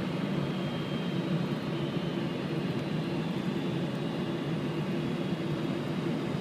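Steady drone of a Boeing 747-400's engines and rushing air heard from inside the aircraft during the descent on approach, an even noise with a low hum under it.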